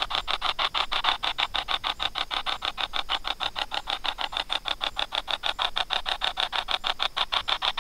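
Spirit box app sweeping: a fast, even chopping of static and radio fragments, about eight or nine pulses a second.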